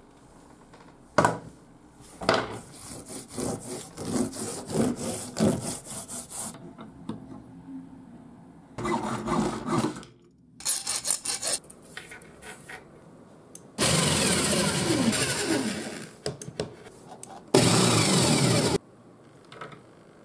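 Workshop work noises: a knock, then a few seconds of rubbing and scraping strokes. About halfway through, a hacksaw cuts a metal bolt clamped in a small bench vise in quick strokes. Later come two loud steady noisy stretches, one about two seconds long and a shorter one.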